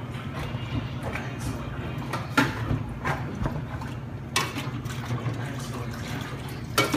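Dishes being rinsed in a stainless steel bar sink: water sloshing, with three sharp clinks or knocks spread through, over a steady low hum.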